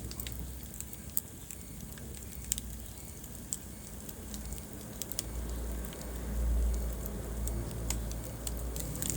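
Wood fire burning in a fireplace: sharp, scattered crackles and pops over a steady low rumble that swells for a couple of seconds past the middle.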